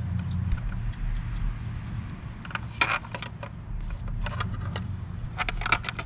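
Light clicks and taps of a plastic turn-signal bracket and the signal's wire connectors being handled as the wires are threaded through the bracket, a cluster about halfway through and another near the end, over a steady low rumble.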